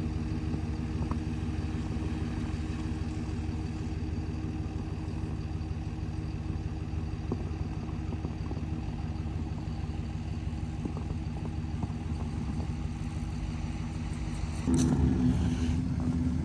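Vehicle engine running steadily at a low, even pitch, getting suddenly louder about fifteen seconds in as the engine note changes.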